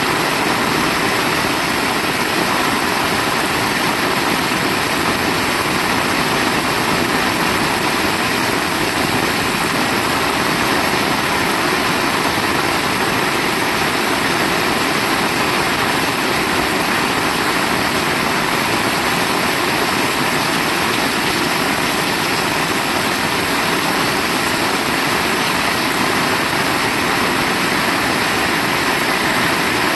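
Heavy rain falling steadily: a dense, even hiss that does not change.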